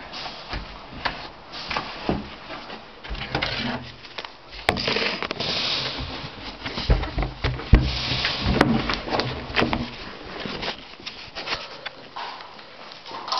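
Irregular clicks, knocks and rustling from people moving about with gear in a small room, with low thumps of handling noise on the microphone.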